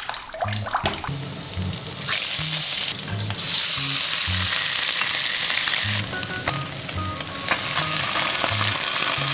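Crucian carp frying in hot oil in a wok: a loud steady sizzle that swells about three seconds in, over background music with a steady low bass line.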